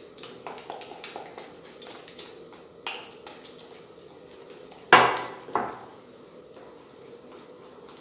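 Wooden spoon beating eggs, sugar and margarine by hand in a glass bowl, with a run of small clicks and scrapes against the glass. Two louder knocks come about five seconds in, half a second apart.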